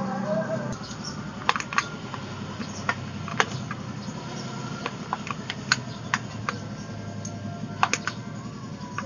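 Irregular sharp metallic clicks and ticks, about a dozen at uneven spacing, as a bicycle saddle's clamp is worked and seated onto the seat post.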